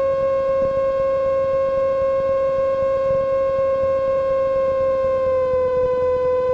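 Cessna 150's Continental O-200 engine and propeller drone in cruise, heard from the cockpit as one steady pitched tone. The pitch sags slightly about five seconds in.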